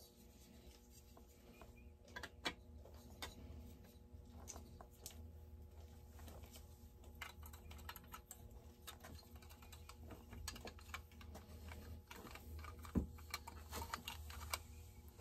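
Faint, scattered clicks and light taps of small parts as a stripped Redmax GZ360 chainsaw engine is handled and turned over on a workbench, over a low steady hum.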